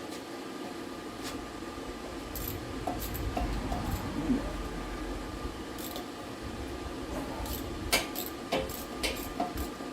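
Irregular metallic clinks and knocks of hand tools and fasteners being handled during driveshaft work, over a steady low background hum. The clinks come more often near the end.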